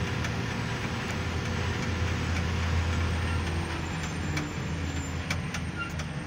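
Steady low engine drone and tyre noise from a road vehicle driving on a paved road, swelling a little about two seconds in.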